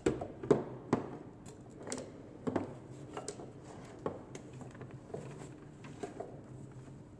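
A string of light clicks and knocks from equipment being handled on a table, irregular and sharpest about half a second and one second in, with smaller clicks after.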